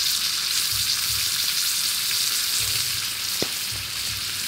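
Shellfish in their shells sizzling and bubbling on a charcoal grill, topped with scallion oil: a steady hiss. A single short click comes about three and a half seconds in.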